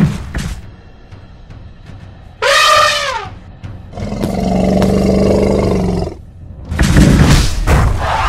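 Dubbed animal sound effects over background music: a brief thud at the start, then an elephant-like trumpeting call that falls in pitch about two and a half seconds in, for the woolly mammoth. About four seconds in comes a low growling roar lasting some two seconds, for the rhino, and near the end loud rumbling noise.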